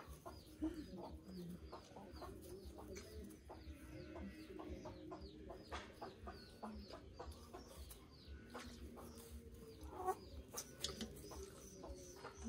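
Chickens clucking softly close to the microphone, with a steady run of faint, quick, high falling chirps behind them.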